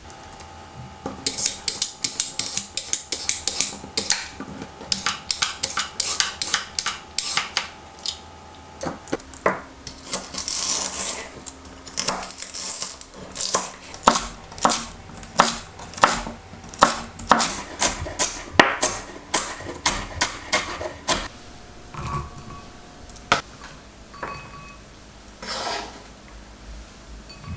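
Kitchen utensils clicking and knocking against dishes or a board, many sharp strikes: dense at first, then a steady run of about two a second, thinning out near the end.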